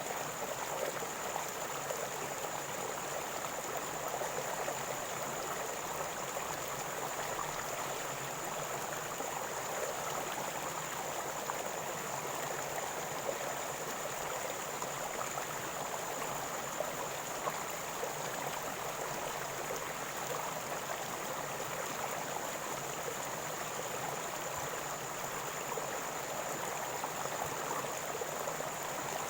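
River water flowing and gurgling in a steady, even rush, with a faint steady high-pitched whine above it.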